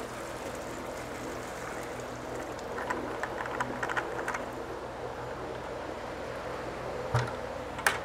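Fish-waste sludge poured slowly from a plastic bucket into an aerated mineralization tank: a quiet, steady liquid sound, a little stronger between about three and four and a half seconds in. A dull thump near the end as the bucket is set down.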